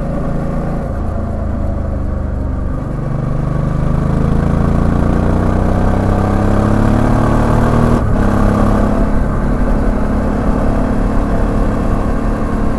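Suzuki V-Strom 650XT's 645 cc V-twin engine pulling under acceleration, its pitch climbing for several seconds and growing louder. The climb breaks off briefly about eight seconds in, then the engine runs on at a steadier pitch.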